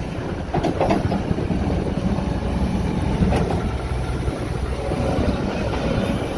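Yanmar diesel engine of a Gehl RT210 rubber-tracked skid steer loader running, with a few brief clanks about a second in and again a little after three seconds.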